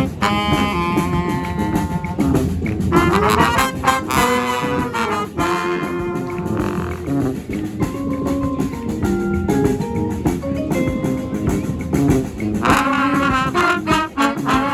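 Brass band playing live: a horn section carrying the tune in held and moving notes over a steady percussion beat.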